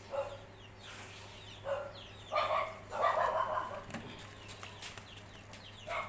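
Chickens clucking in short calls, a longer run of clucks about halfway through, with faint high bird chirps in the background.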